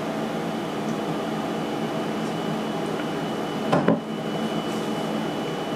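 Steady mechanical room hum with no speech. About four seconds in comes a brief double knock.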